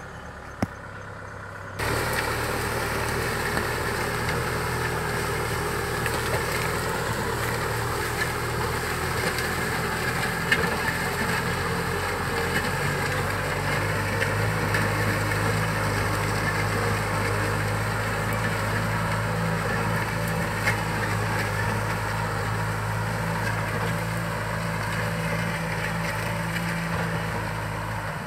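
Kubota M6040SU tractor's four-cylinder diesel engine running steadily under load while pulling a disc plough through the soil. Fainter for the first two seconds, then louder and steady.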